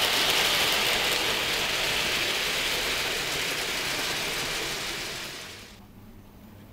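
00 gauge model freight train of mineral wagons rolling along the track, a steady rattling hiss of metal wheels on the rails that slowly fades as the train moves away and cuts off abruptly near the end.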